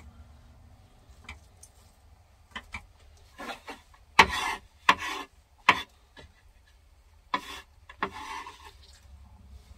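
Kitchen knife scraping and knocking on a wooden cutting board as chopped cabbage is cleared off it. There are a few sharp knocks in the middle, each with a short scrape, and another scrape near the end.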